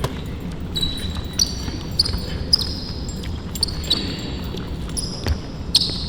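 A basketball dribbling hard on a court during one-on-one play, with repeated short, high squeaks that are typical of sneakers on the court floor.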